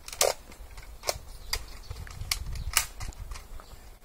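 X-Shot toy shotgun being loaded by hand: a series of sharp plastic clicks and snaps as the shell is pushed in and the action is worked, the loudest near the start and about three seconds in.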